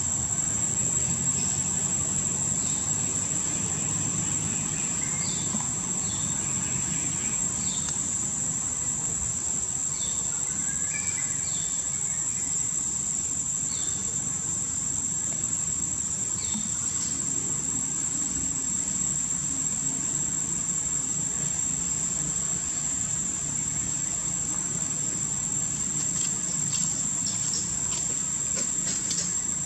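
Insects droning in one steady, unbroken high-pitched tone, with faint short chirps now and then.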